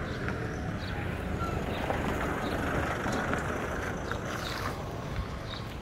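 Outdoor street noise of passing traffic, a steady rumble that swells through the middle and eases off near the end.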